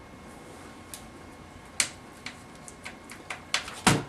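Scattered light clicks and taps of plastic and metal laptop parts being handled as screws are taken out of the opened chassis, at uneven intervals. A louder knock comes near the end.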